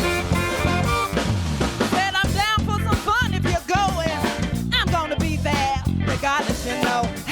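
Live band playing: drum kit, guitar and bass, joined about two seconds in by a lead melody that slides and wavers.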